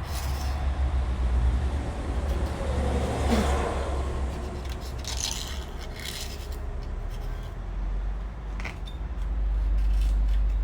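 Thread chaser being worked through bolt holes: metal scraping with a few sharp clicks, over a steady low hum.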